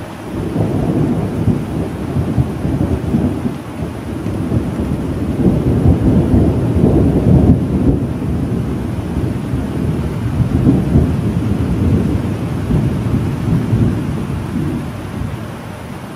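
Long rolling thunder rumble over steady rain. It builds about half a second in, swells in several waves with the loudest peak around the middle, and eases off near the end.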